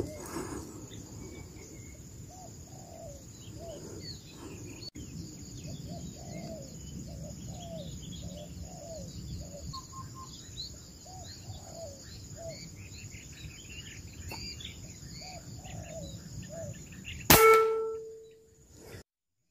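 Birds calling in woodland, repeated low notes about twice a second with higher chirps, over a steady high insect drone. Near the end comes a single loud air-rifle shot with a short metallic ring.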